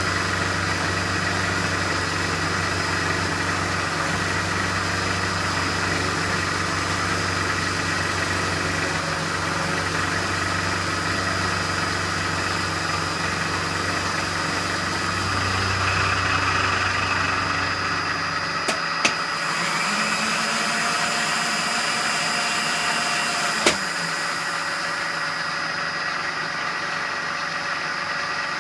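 Metalworking machine tool running steadily while cutting metal, its motor a steady hum. About two-thirds of the way through, the low hum drops away, and two sharp clicks follow a few seconds apart.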